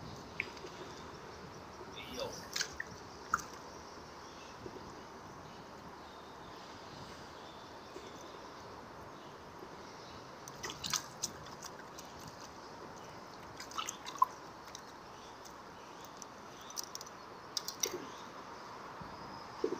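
Scattered drips and small splashes of water, with a few light handling clicks, over a steady background hiss.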